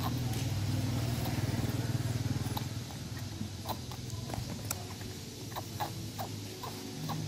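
Baby monkeys sucking at plastic milk bottles, making short irregular clicks, over the steady hum of a motor vehicle engine that fades about three seconds in.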